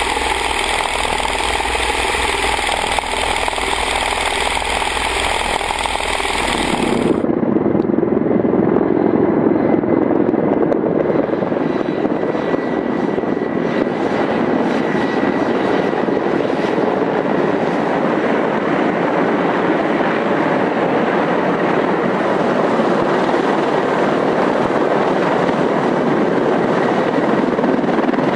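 Military helicopter engine and rotor noise. It starts as a bright, steady engine sound with several held tones, then changes sharply about seven seconds in to a lower, duller rotor noise with a faint steady whine.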